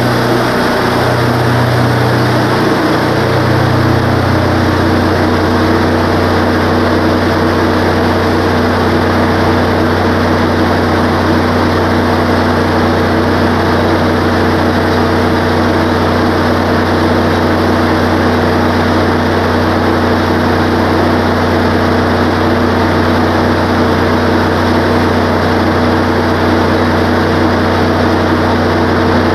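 Wood-Mizer LT15 sawmill's gasoline engine running steadily; during the first few seconds an extra wavering hum rises and falls over it, then the engine settles to an even drone.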